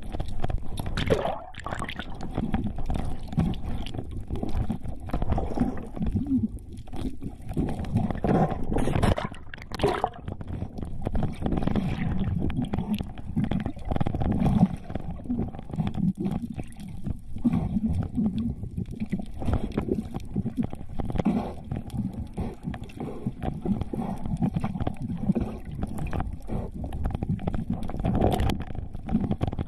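Muffled underwater noise heard through an action camera's waterproof housing: water rushing and gurgling as the diver swims and moves, with a few sharp knocks.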